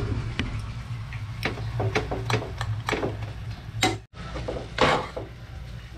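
A metal spoon clinking and scraping against a pan of instant noodles: a string of sharp, irregular ticks and a short scrape, over a steady low hum.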